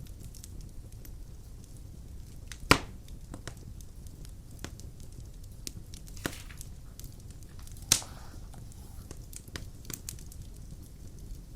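Wood fire burning in a fireplace, crackling steadily with scattered small snaps and two loud pops, about three seconds in and again near eight seconds.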